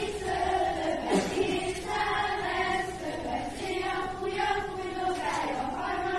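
A group of voices singing a melody together, in long held notes.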